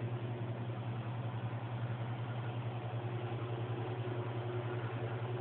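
Domestic cat purring steadily, close up: a low, even, fluttering drone.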